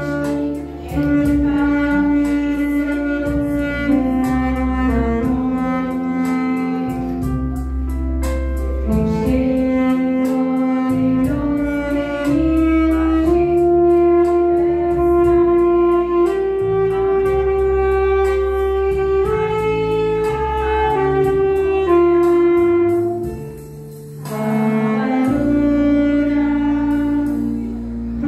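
Saxophone playing a slow melody in long held notes over electronic keyboard chords and bass, with a short break about three-quarters of the way through.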